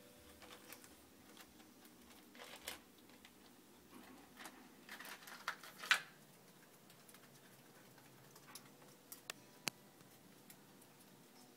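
Faint clicking and rattling of small white decorative pebbles shifting under a walking pet hedgehog. It comes in scattered clusters that build to a louder clack about six seconds in, followed by a few separate sharp ticks.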